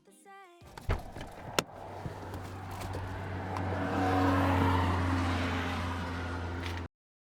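A car running, a steady low hum under rising noise that swells to a peak and then cuts off abruptly, with two sharp clicks about a second in.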